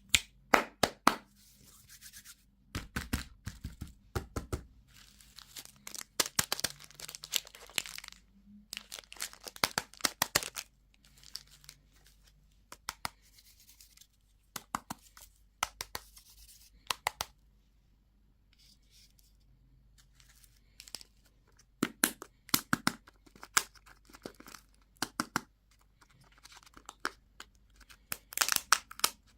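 Plastic candy and toy wrappers being crinkled and torn open by hand: irregular clusters of sharp crackles and clicks, with short pauses between.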